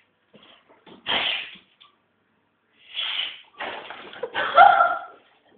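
A dog sneezing several times in short, sharp bursts of breath. The last and loudest comes near the end, with a brief voiced sound mixed into it.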